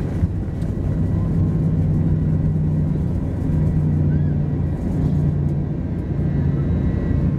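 Airliner cabin noise during the takeoff run: the engines at takeoff power give a loud, steady low rumble.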